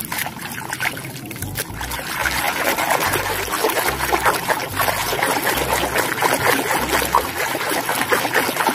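Water trickling and spattering as a muddy plastic toy is rinsed clean under it.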